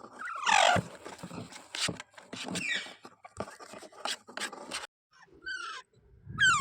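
Indian ringneck parrot (rose-ringed parakeet) giving several harsh squawks that slide down in pitch, with sharp clicks in between.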